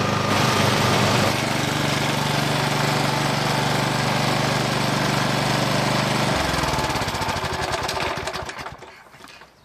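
Old Briggs & Stratton 3.75 hp single-cylinder lawn mower engine running steadily at the most it will rev, on choke, unable to speed up: the owner suspects a bent throttle-spring linkage. About six seconds in the engine note falls as it winds down and stops.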